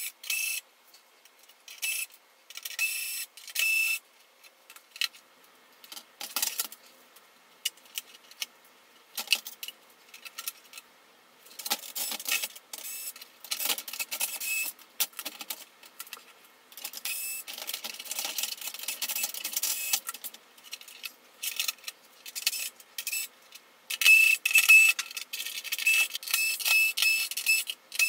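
Cordless electric screwdriver whirring in short, choppy runs, mixed with clicks and rattles of screws and metal parts. The runs are longest and loudest in the second half.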